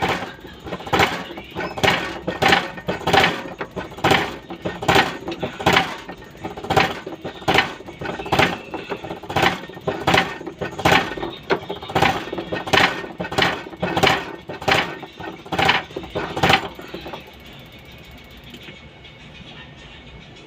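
Steady run of sharp metallic clicks, about two a second, that stops about 16 seconds in.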